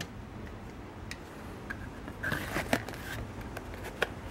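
A pistol and a tooled leather holster being handled: soft leather scrapes and rustles with a few light clicks, and a sharper click about four seconds in.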